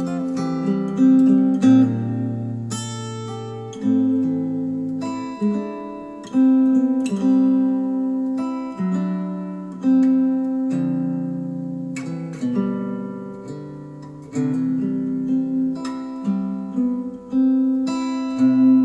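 Acoustic guitar music played back through Focal Chora 806 bookshelf speakers: plucked chords and single notes, each struck sharply and left to ring out, a new one every second or two.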